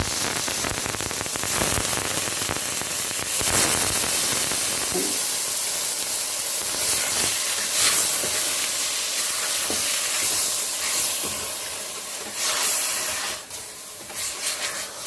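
Chicken pieces sizzling in hot oil with fried onion and ginger in a pot, a loud steady hiss broken by a few short clatters of stirring, easing off near the end.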